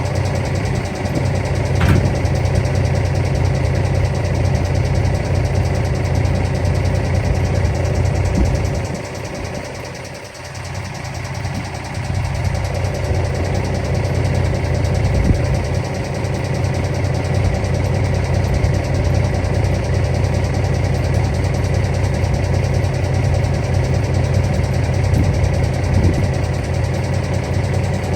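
International 9900 semi truck's diesel engine running steadily with a deep rumble, which drops away briefly about ten seconds in before coming back.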